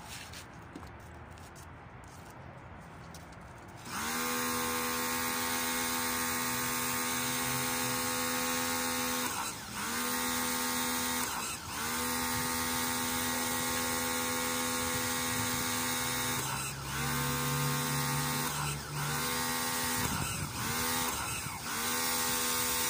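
Black & Decker BXPW1300 electric pressure washer's motor and pump starting about four seconds in and running with a steady whine. It stops briefly and starts again several times, as an auto-stop washer does when the spray gun's trigger is let go and squeezed again.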